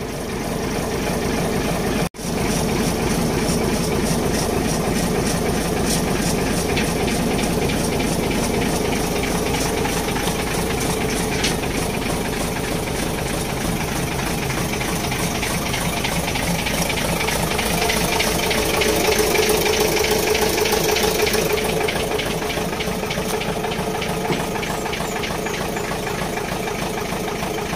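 A 14-wheeler truck's diesel engine idling steadily, a little louder for a few seconds around twenty seconds in.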